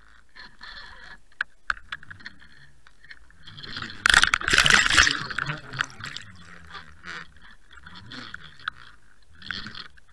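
Water rushing and bubbling over an underwater camera, with scattered sharp clicks and a faint low hum underneath. A loud surge of rushing comes about four seconds in.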